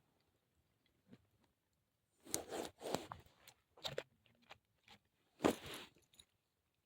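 A person chewing food with several short crunching bites a second or so apart, starting about two seconds in; the loudest bite comes near the end.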